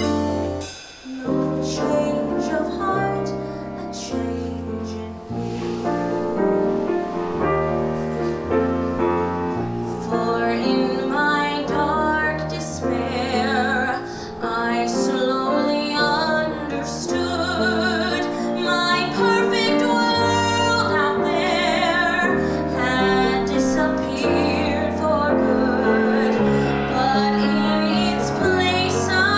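A woman singing a slow musical-theatre ballad live into a microphone, backed by a band of drums, bass and guitar. Her voice grows fuller and louder, with vibrato on held notes, from about ten seconds in.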